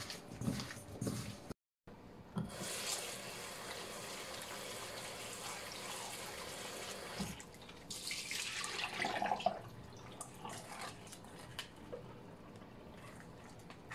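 Hands squishing shrimp in potato starch in a stainless steel bowl for a moment, then a kitchen tap running steadily into the bowl as the shrimp are rubbed clean. About eight seconds in the water sloshes out of the bowl into the sink, followed by drips and light taps of the steel bowl.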